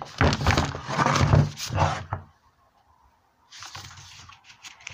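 Clattering and scraping from an old chainsaw being handled and moved about on a workbench, a busy run of quick irregular knocks for the first two seconds, then quieter scraping near the end.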